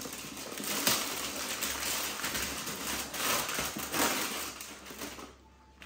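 Gift packaging being handled: paper and foil wrapping rustling and crinkling, with light clicks and knocks as a box is unpacked. The sound breaks off briefly just before the end.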